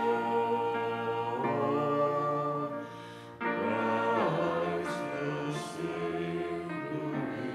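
Voices singing a hymn together in a church, held chords with a short break between phrases about three seconds in.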